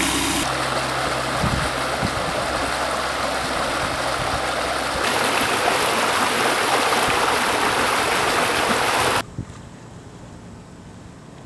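Floodwater pumped out of a large discharge hose into a flooded street: a steady, loud rush of churning water, with a low engine hum beneath it in the first few seconds. About nine seconds in it cuts off abruptly to a much quieter background.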